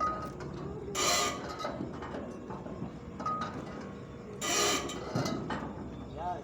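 Hand work with pliers and wire on a motorcycle chain: metal rubbing and clicking, with two short, harsh scraping bursts, one about a second in and one past the middle.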